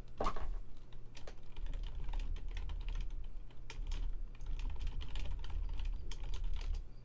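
Typing on a computer keyboard: a steady run of quick key clicks as a search query is entered, with a slightly heavier click just after the start.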